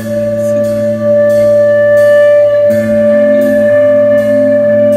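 Live instrumental post-rock band playing loud, sustained electric guitar chords that drone on one note. Cymbal strokes come about every two-thirds of a second, and the music gets louder about a second in.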